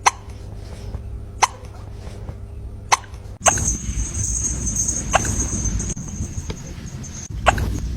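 A kitten hiccupping: short, sharp little hiccups, five or six in all, about every one and a half seconds.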